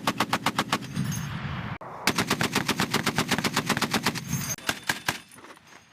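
Machine gun firing in automatic bursts at about ten shots a second: a burst of about a second, a short break, then a longer burst of about two and a half seconds that ends with a few last shots.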